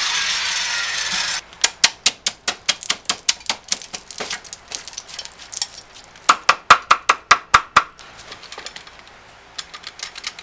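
A circular saw running with its blade note falling, then cutting out about a second and a half in. A rapid series of sharp wooden knocks and snaps follows, about three or four a second and loudest in a burst past the middle, as the thin wood fins left between the saw kerfs are knocked out of the 2x4 dado.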